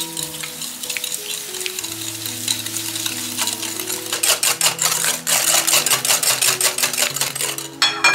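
Eggs and sugar being beaten with a whisk in a bowl: quick, repeated scraping strokes that grow busier in the second half, over soft background music.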